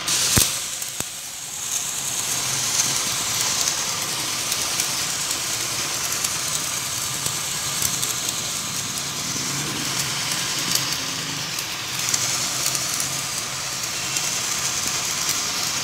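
Garden hose spray nozzle hissing steadily as it sprays a fine jet of water through a wire dog cage, after a single sharp click about half a second in.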